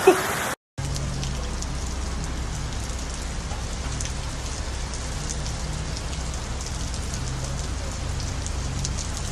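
Rain falling steadily, an even hiss with scattered drop ticks and a low steady hum underneath, starting after a brief silent gap near the start.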